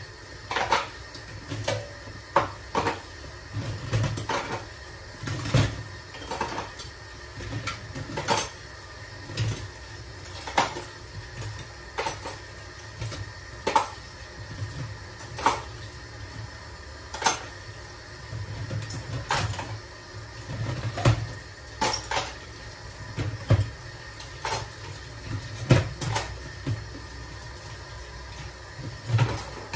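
Dishes and plastic cups clattering as they are handled at a dish drying rack: irregular sharp clinks and knocks about once a second, some with a low thump as a piece is set down.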